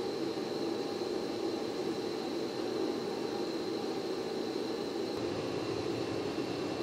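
Steady machinery hum and whir with a thin, high steady whine running over it.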